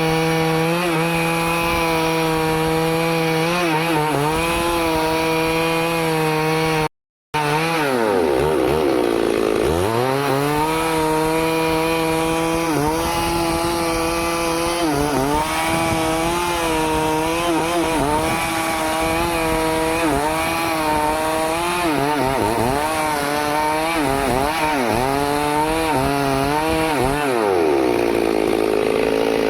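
Stihl chainsaw running near full throttle while cutting wood; its engine pitch sags and climbs back several times as the chain digs in under load. The sound cuts out for a moment about seven seconds in.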